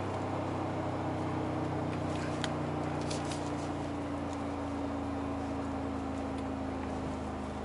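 Mercedes-AMG G63's twin-turbo V8 droning steadily, heard inside the cabin while the SUV cruises, its note sinking slowly in pitch. A few light clicks come about two to three and a half seconds in.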